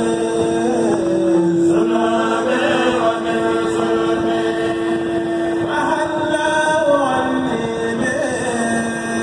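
A Mouride kourel: a group of men chanting religious poems together without instruments, in unison. A steady held note runs under the moving melody line throughout.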